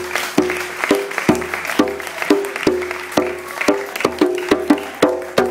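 Instrumental music: one note struck over and over in an uneven rhythm, about three times a second, over a low held bass tone.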